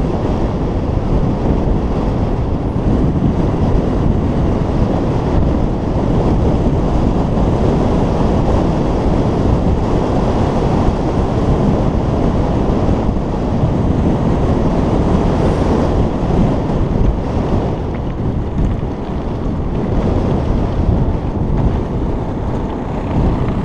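Wind buffeting the microphone of a camera moving along with a cyclist: a loud, steady rumble with no breaks.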